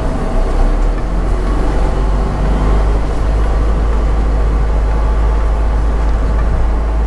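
Isuzu NPS81UHH truck's 4.8-litre 4HL1 turbo-diesel engine running steadily under load as the truck drives through thick sand in four-wheel-drive high range, a deep, even drone heard from inside the cab.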